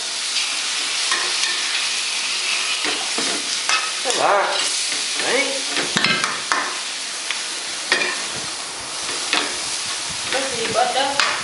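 Spring roll filling of pork mince, shredded cabbage, carrot and glass noodles sizzling in a metal wok over a gas flame, with water just added to the pan. A metal spatula scrapes and clinks against the wok as the filling is stirred; the sizzle is strongest at first and eases a little.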